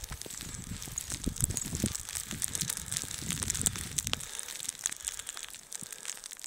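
Footsteps crunching through fresh snow at a walking pace, about two steps a second, stopping about four seconds in. Fainter crackling and crunching goes on after the steps stop.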